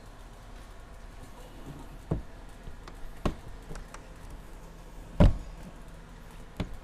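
Scattered knocks and clunks of an RV's outdoor TV being pushed back into its exterior compartment and the compartment door being shut, the loudest knock about five seconds in as the door closes.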